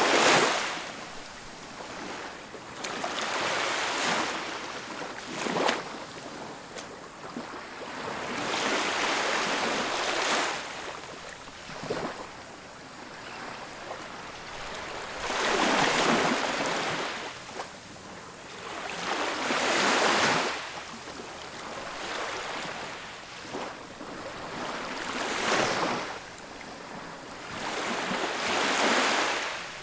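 Ocean surf breaking on a beach: waves rise to a rushing hiss and fade away again, one surge every four to six seconds.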